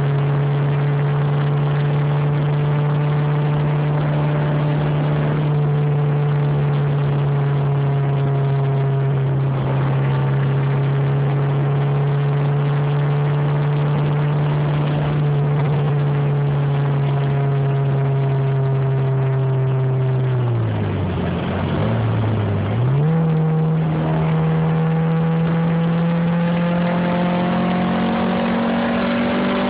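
Honda B16 four-cylinder engine in a DC2 Integra running hard at a steady speed. About twenty seconds in, the revs drop for a couple of seconds, then climb back higher and keep rising slowly. The car has an exhaust leak at the front of the exhaust.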